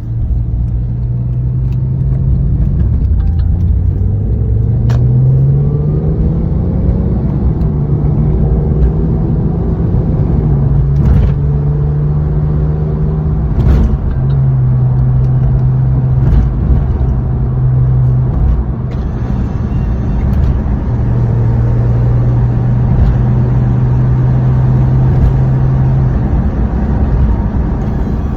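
Porsche 997 Carrera GTS's 3.8-litre flat-six running on its stock exhaust while driving. Its note climbs with the revs about five seconds in, then holds at steady revs with a few small steps in pitch, and a few short clicks are heard over it.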